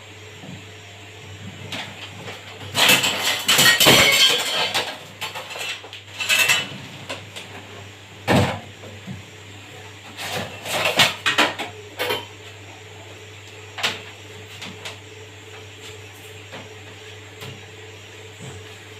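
Clattering and knocking of parts and tools being handled during an RO water purifier repair, in several irregular bursts with the loudest around a few seconds in, over a steady low hum.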